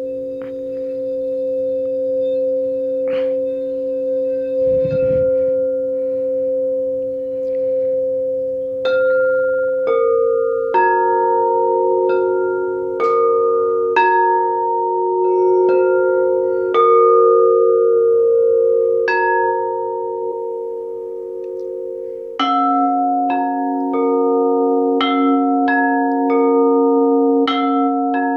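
Quartz crystal singing bowls ringing: a few low bowls hold a steady, layered hum while, from about nine seconds in, higher notes are struck roughly once a second and ring on, and a new lower tone joins a little before the end. A soft low thump about five seconds in.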